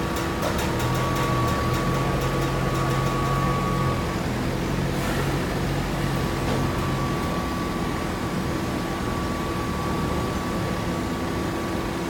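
Hydraulic baler's motor and pump running steadily, a machine hum with a steady whine over it; the lower part of the hum stops about seven seconds in.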